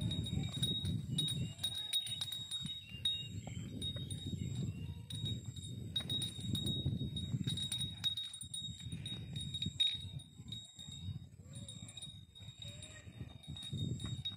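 Wind buffeting the microphone with a gusting rumble that rises and falls every second or two, over a thin, steady high chirring of insects.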